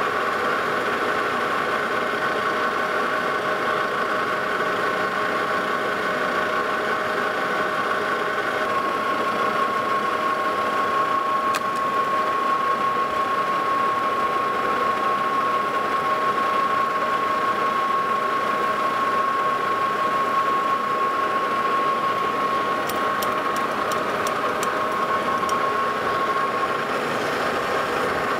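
Lodge & Shipley metal lathe running steadily while its tool takes a finishing cut along a small turned shaft. A steady whine comes in about a third of the way through and stops near the end, with a few faint ticks shortly before it stops.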